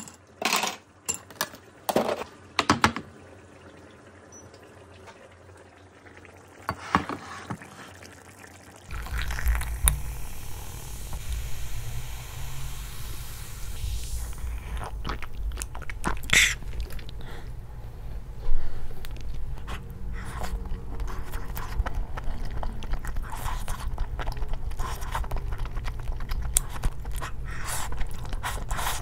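Ice cubes dropping into a glass tumbler, a quick run of sharp clinks over the first few seconds. After a pause, a person eats over a steady low hum, chewing and slurping noodles, with scattered clicks and a couple of louder knocks.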